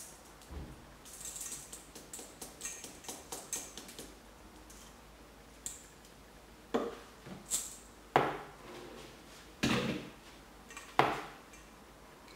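Washed glutinous rice trickling from a stainless-steel colander into a stainless-steel bowl with light rattling ticks, then about five sharp metal clanks in the second half as the colander is knocked against the bowl to shake out the last grains.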